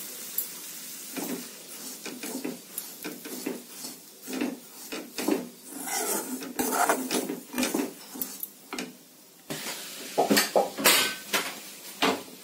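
Perforated steel ladle stirring semolina in a kadai as it roasts in ghee, with irregular metal scrapes and knocks against the pan, loudest about ten seconds in.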